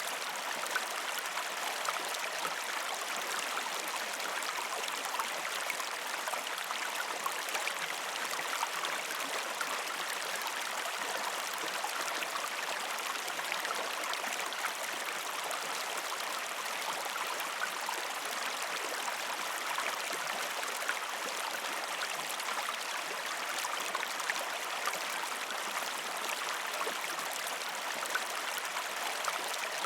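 River stream water flowing over rocks: a steady rushing with small splashes and gurgles scattered through it.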